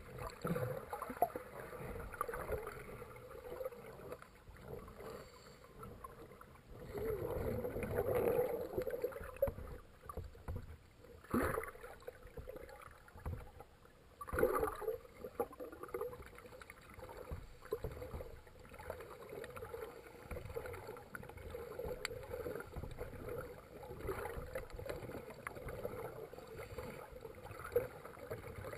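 Muffled underwater noise in a swimming pool: a steady hum under irregular louder swells of bubbling from scuba divers' regulator breathing.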